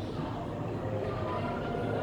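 Shopping-mall background: a steady low hum with faint distant voices, and faint music coming in about a second in.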